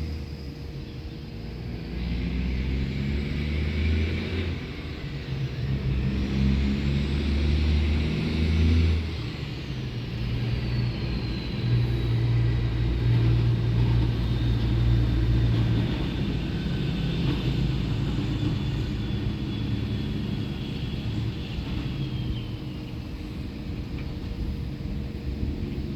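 Road traffic: motor vehicles passing, a low engine rumble that swells and eases as they go by, with a high tyre whine that glides down in pitch.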